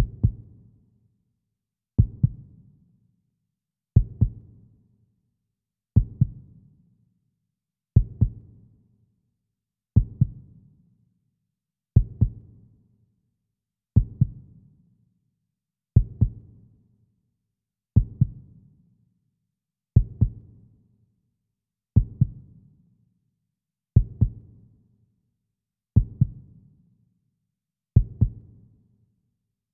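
Slow heartbeat sound in a music track: a low double thump, lub-dub, about every two seconds, each fading out before the next.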